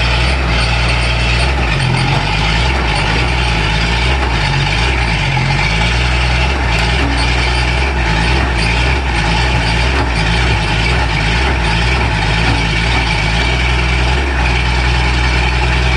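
Komatsu hydraulic excavator's diesel engine running at high revs, loud and jet-like, with a steady deep hum under a dense rushing noise. Faint clicking and rattling sounds over it throughout.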